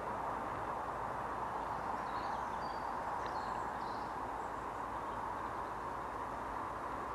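Steady outdoor background noise, with a few faint, high bird chirps about two to four seconds in.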